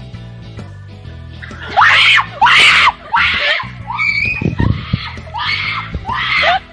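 A young woman screaming: a string of loud, high-pitched screams starting about two seconds in, over background music.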